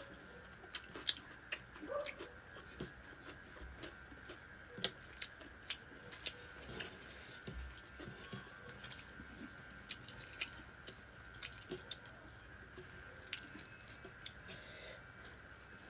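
Close-up mouth sounds of someone eating: chewing with irregular sharp clicks and smacks, several a second at times.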